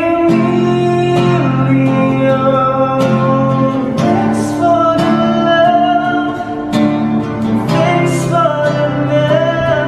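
A song: a voice singing a sustained melody over strummed acoustic guitar.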